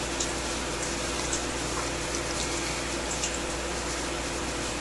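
Steady background hiss with a low hum, with a few faint computer mouse clicks about a second apart as drop-down menus are picked.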